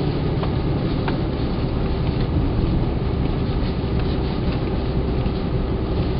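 Hyundai Santa Fe driving slowly through deep snow: a steady rumble of engine and tyre noise, with a faint steady hum and scattered light clicks.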